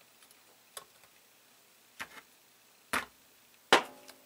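Four sharp metallic clicks of small wire cutters gripping and pulling the cut-off pin stubs of a removed chip from a circuit board's pads, spaced about a second apart; the last is the loudest, with a short ring.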